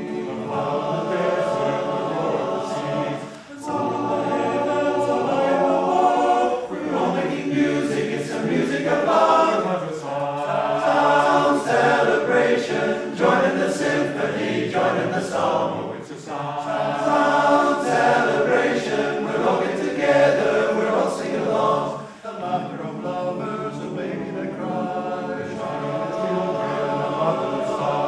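Men's barbershop chorus singing a cappella in close four-part harmony, with brief breaks between phrases about three and a half seconds and twenty-two seconds in.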